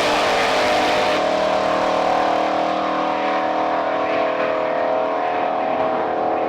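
Car engine running steadily at high revs, its pitch holding level; the sound turns duller from about a second in.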